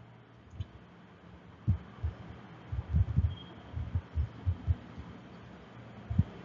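Soft, irregular low knocks and taps from a pen writing on a surface, in a quick cluster through the middle and one more near the end.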